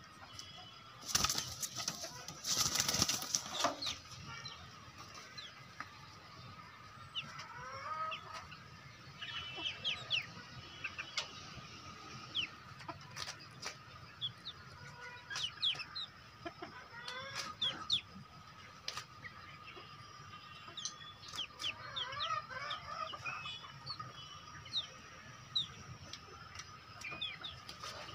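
A flock of native chickens in a pen: a loud flurry of wing flapping about a second in, then scattered short clucks and chirps from the birds.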